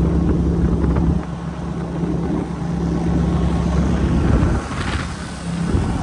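A boat's motor running steadily at speed, a constant low drone with wind buffeting the microphone. It drops in level about a second in and again past the middle, as the shots change.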